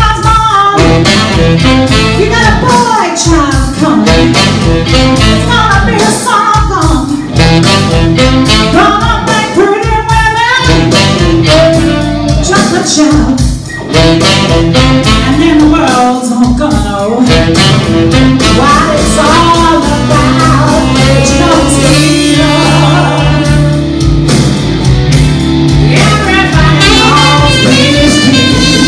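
A live band playing: saxophone and electric guitar with a woman singing.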